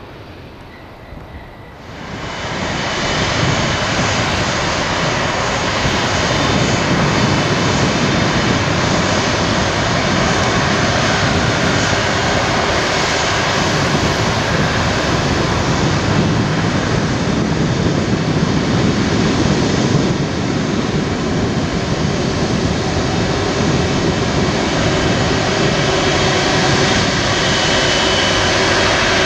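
Airbus A330 airliner's twin jet engines running at taxi power as it taxis close by: a loud, steady jet noise with a faint whine, starting about two seconds in after a quieter stretch.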